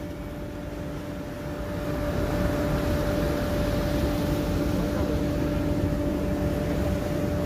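A boat's engine running steadily with a constant hum, over a rush of wind and water that grows louder about two seconds in.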